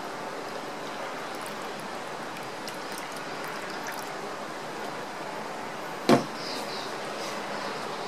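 Water poured into the plastic water tank of an electric whetstone sharpening machine, a steady stream splashing into the water already in the tank. A single sharp knock about six seconds in.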